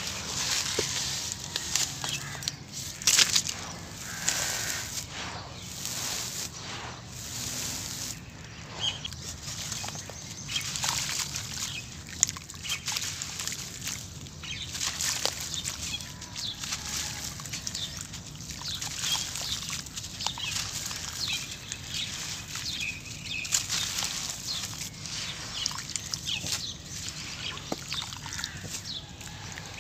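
Dry sand-cement dust shaken and rubbed in a plastic sieve basket at the start, then hands scooping and squeezing wet sand-cement paste in a water-filled pit, with gritty crackling and wet squelching and sloshing in a steady run of short strokes.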